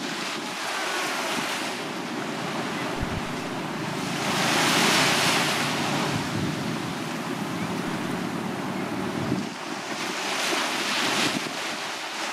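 Small waves breaking and washing up a sandy beach, a steady surf hiss that swells loudest about four to six seconds in and again near the end. Wind buffets the microphone underneath.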